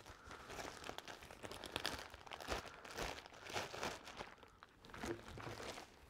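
Clear plastic wrapping crinkling and rustling in irregular crackles as it is handled and pulled away from a rolled-up photo print.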